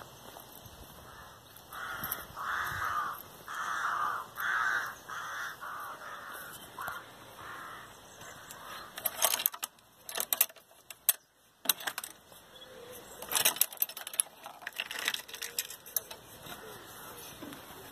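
A crow cawing, a run of about ten caws over some five seconds that get fainter. Later come two bursts of sharp clicking and rattling, the loudest sounds here.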